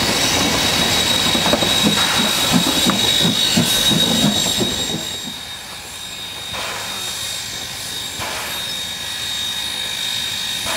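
Steam locomotive A428 and its tender rolling close by, wheels knocking in a steady rhythm over the rail joints. After about five seconds the sound drops away to a quieter running engine with a couple of soft exhaust puffs.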